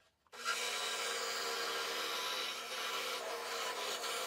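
Scroll saw switched on about half a second in, then running steadily as its reciprocating blade cuts through a wooden workpiece.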